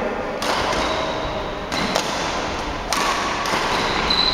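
Badminton rackets striking a shuttlecock during a rally, several sharp hits a second or so apart, echoing in a large hall over the general noise of play.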